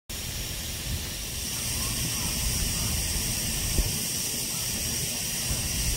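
Lawn water sprinkler spraying with a steady hiss, over a low rumble, with one low thump a little under four seconds in.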